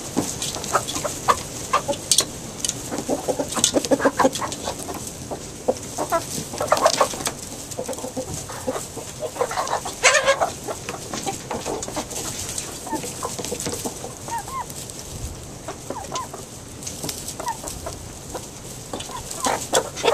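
A flock of Barred Rock hens clucking and calling, many short overlapping clucks with sharp clicks mixed in.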